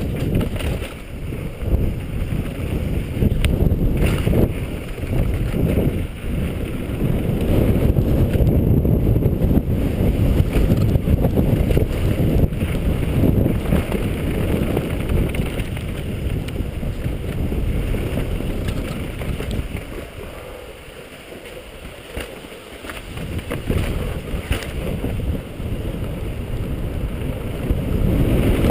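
Wind buffeting the microphone during a downhill mountain bike run, a loud low rumble mixed with short knocks and rattles from the bike over rough ground. It eases for a few seconds about two-thirds of the way through, then picks up again.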